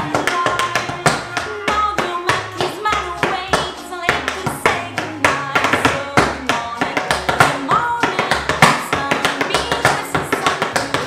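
Metal taps on tap shoes striking a wooden floor in fast, rhythmic steps, over an acoustic cover song with singing.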